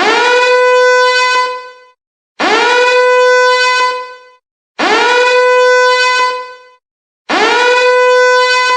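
Siren sound effect: four short wails, each sliding quickly up to a steady tone, holding for about a second and a half, then fading, with short gaps between them.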